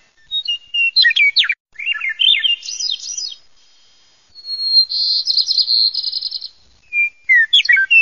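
A songbird singing a varied song of whistled notes and quick sweeping phrases in short bursts, with a fast trill in the middle.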